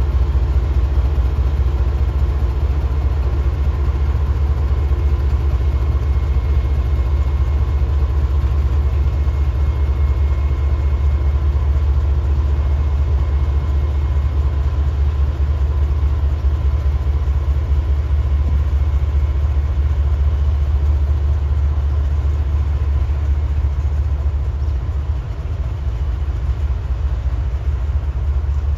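KTMB Class 26 diesel-electric locomotive's engine running with a steady low drone as it hauls a train of container wagons, the wagons rolling by on the track.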